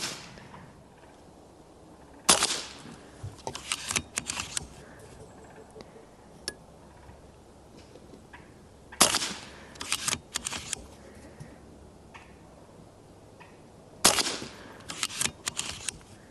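Three shots from a Brocock Ghost .30 PCP air rifle fitted with a moderator, a few seconds apart. Each is a sharp crack followed within a second or so by a quick run of clicks as the action is cycled for the next pellet.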